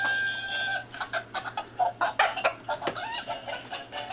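A rooster's crow trails off in the first second, followed by a run of short, choppy clucking calls and sharp clicks.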